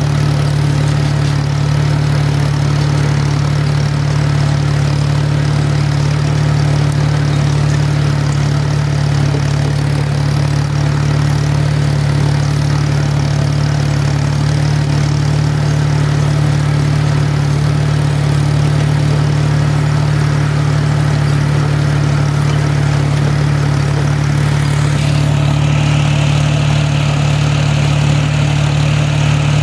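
Tractor engine running steadily while pulling a seed drill across a field, with a strong, even low hum. A steady hiss joins near the end.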